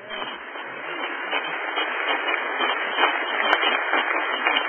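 Congregation applauding: dense clapping that swells over about the first second and then holds steady.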